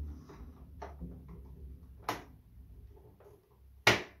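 Screwdriver and hard plastic clicking and knocking while the stand is unscrewed from the back of a flat-screen TV: a few sharp knocks about a second apart, the loudest near the end, with low handling rumble at first.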